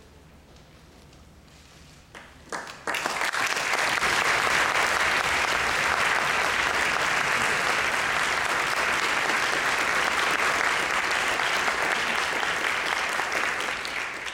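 Audience applauding: a few scattered claps about two seconds in, then steady full applause that dies away near the end.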